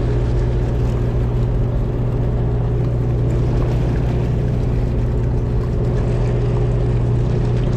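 A charter fishing boat's engine running steadily, a constant low hum.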